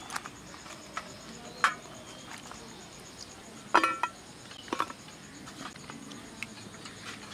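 A few light clinks and knocks of stainless steel as bitter gourd slices are handled in a steel bowl of water and laid on a steel plate. The loudest is a ringing knock nearly four seconds in. Behind them an insect chirps faintly and steadily.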